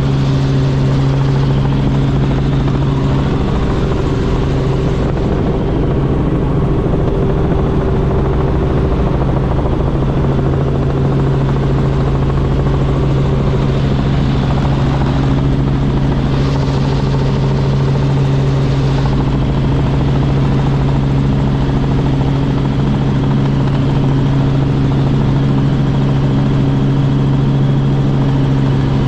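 Robinson R44 Raven II helicopter in flight: its engine and rotors make a steady, loud drone with a deep, unchanging hum.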